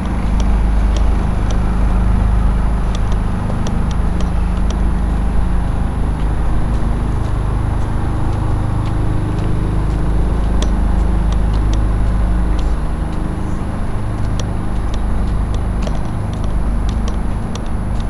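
Steady low rumble with scattered faint clicks throughout.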